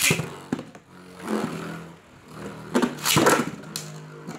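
Beyblade spinning tops whirring and clashing in a plastic stadium. A sharp crack at the start is followed by a steady spinning hum, with several loud clacks about three seconds in.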